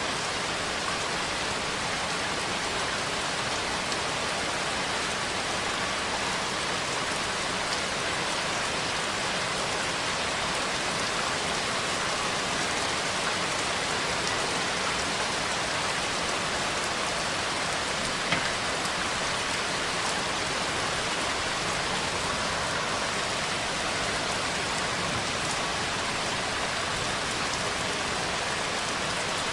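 Steady rain falling on a surface, an even dense hiss, with one sharp drop-like tick about two-thirds of the way through.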